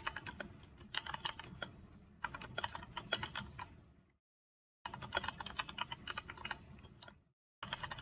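Rapid typing on a computer keyboard, a quick run of key clicks in three spells, broken by short pauses about four seconds in and again about seven seconds in, where the sound cuts out completely.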